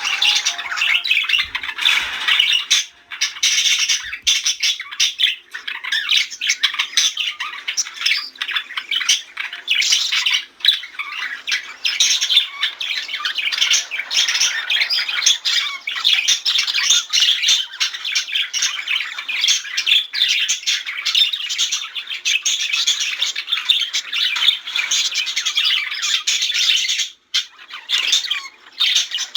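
Budgerigars chattering, warbling and chirping continuously, a dense run of rapid squawky notes with only brief pauses.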